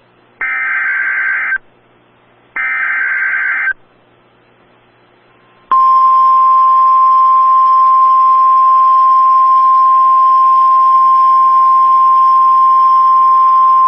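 Emergency Alert System warning on NOAA Weather Radio: the last two of the three SAME digital header bursts, each a harsh warbling data screech about a second long with a pause between, then from about six seconds in the steady single-pitch 1050 Hz warning tone, held with light radio hiss behind it. Together they announce a Severe Thunderstorm Warning.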